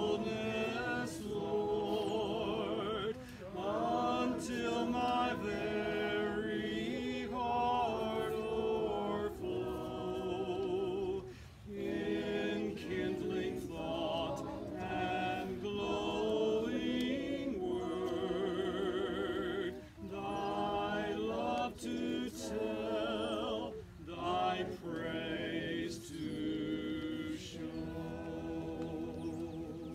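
A congregation singing a hymn together, held notes with vibrato in phrases separated by brief pauses. The last line ends near the end.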